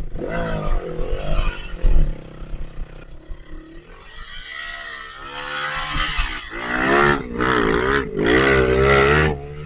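Off-road trail motorcycle engine revving hard, its pitch rising and falling. It gets louder in the last few seconds, with short full-throttle bursts and brief gaps between them.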